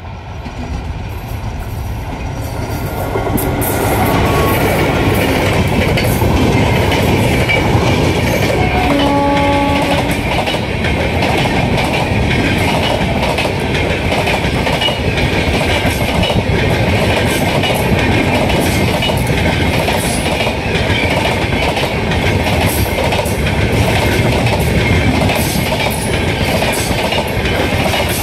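Express train approaching and running through at speed, growing louder over the first few seconds. It then keeps up a steady heavy rumble with the rapid clickety-clack of coach wheels over the rail joints. A short horn blast sounds about nine seconds in.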